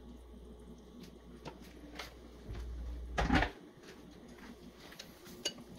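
A few light clicks, then a single loud clunk a little over three seconds in: a stainless steel kettle set down on a glass-ceramic cooktop.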